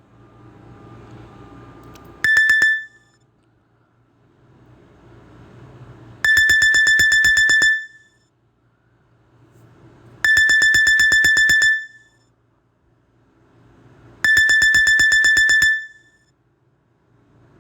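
A Nokia E5 ringtone playing through a Samsung Galaxy A51 phone speaker: high electronic beeping in bursts of rapid pulses, about ten a second. The bursts repeat every four seconds or so, with a soft swelling hum rising between them.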